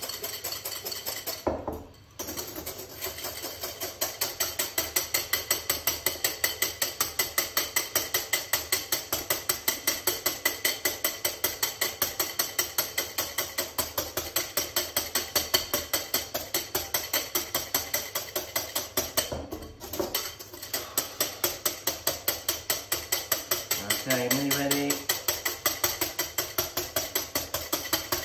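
Whisk beating egg whites in a bowl: fast, regular strokes of the wires against the bowl, about four a second, stopping briefly twice. The whites are being whipped, with a pinch of salt, until fairly stiff.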